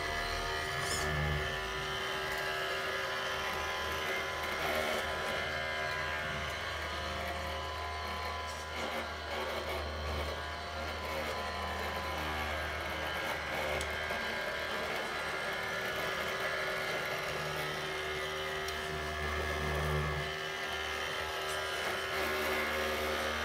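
Small electric motors of an RC model road roller running with a steady whine over a low buzz that swells and eases a few times.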